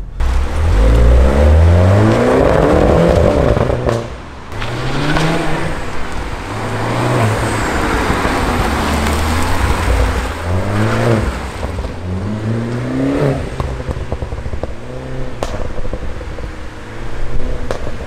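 Mini Cooper S turbocharged four-cylinder engine and exhaust under hard acceleration. The pitch rises in several separate runs, each broken off as the revs drop between gears or off the throttle. A few sharp exhaust pops come on the overrun: misfires deliberately put back in by a software remap.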